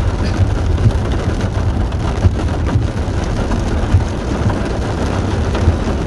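Heavy rain drumming on a car's roof and windscreen, heard from inside the cabin: a dense, even patter of drops over a steady low rumble.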